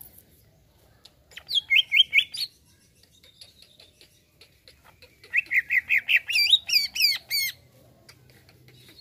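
A caged green leafbird (cucak ijo) singing two short phrases about four seconds apart. Each is a quick run of repeated chirping notes, and the second ends in a few looping whistles.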